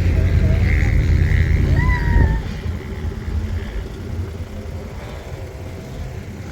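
Off-road vehicle engine rumbling heavily for about two seconds, then dropping back to a quieter, steady run.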